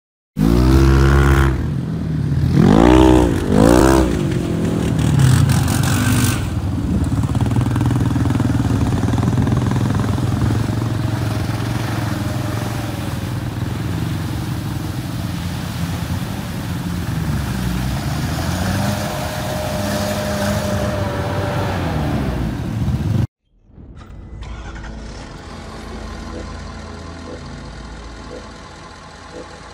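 A Sherp ATV's engine revs up and down a few times, then runs steadily under load as the amphibious vehicle crawls through deep mud and water. A faint whine rises over the engine now and then. The sound cuts off abruptly about 23 seconds in, and a quieter steady hum follows.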